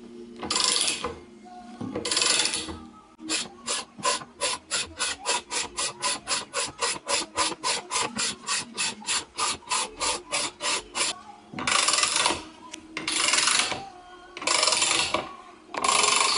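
Ratchet wrench on the forcing bolt of a bearing puller, pulling the middle bearing off a Toyota T50 gearbox mainshaft: ratchet clicking in long sweeps, with a run of evenly spaced clicks about four a second through the middle.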